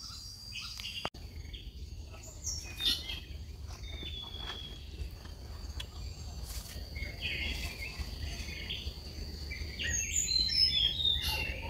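Birds chirping and calling in short high notes over a steady high insect buzz, with a run of quick descending whistled notes near the end.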